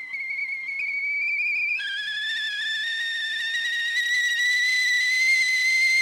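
A single high whistling tone held steadily with a slight waver. About two seconds in it drops to a lower pitch, then slowly rises again.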